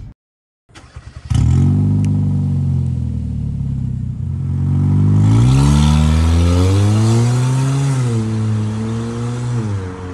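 Kia Cerato's tuned sport exhaust, fitted with a remote-controlled vacuum valve, as the car accelerates away. The engine note starts about a second in, climbs steadily in pitch for several seconds, then drops twice near the end as the car eases off or shifts.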